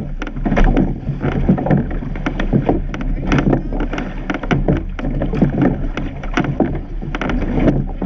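Surf boat being rowed through the sea: oar strokes knocking and splashing about once a second over water rushing along the hull, with wind on the microphone.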